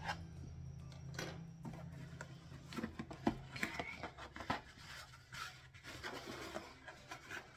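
Cardboard shipping box being cut open and handled: scattered short scrapes, rubs and taps as the sealed flaps are worked loose. A steady low hum runs underneath for the first few seconds.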